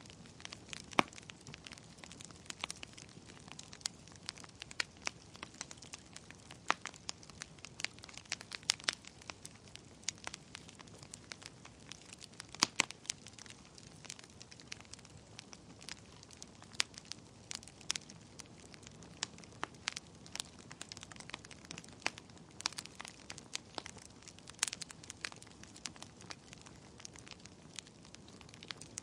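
Wood fire crackling in a fireplace: irregular sharp pops and snaps over a soft low hiss, with a louder snap now and then.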